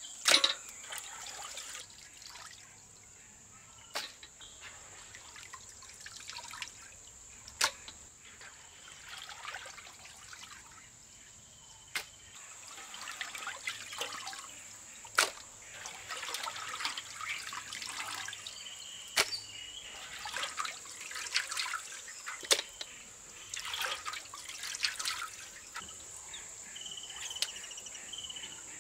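Raw chicken pieces being washed by hand in a large aluminium pot of water: irregular sloshing and trickling as pieces are squeezed and lifted, with water dripping back and several sharp splashes. A steady high insect drone runs underneath.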